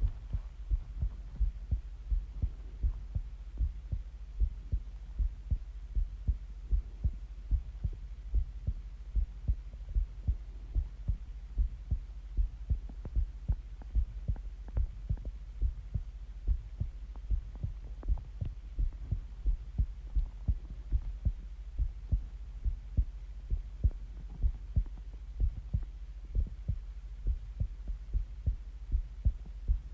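Human heartbeat picked up close to the body: a steady, regular rhythm of short low thumps over a continuous low hum.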